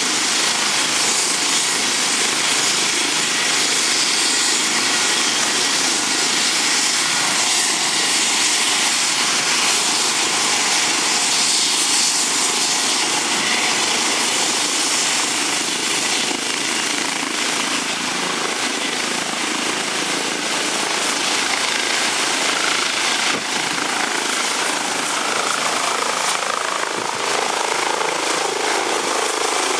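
Eurocopter EC135 air ambulance helicopter running at takeoff power, lifting off and climbing away: a steady loud turbine-and-rotor noise. A high turbine whine edges up in pitch from about halfway through.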